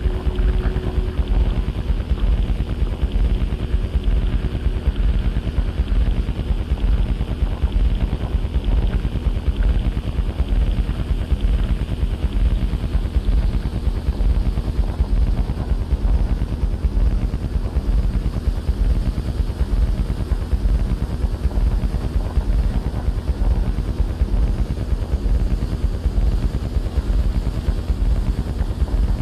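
Experimental electronic music: a dense, low, fast-fluttering drone that holds steady, with a faint held tone fading out in the first few seconds.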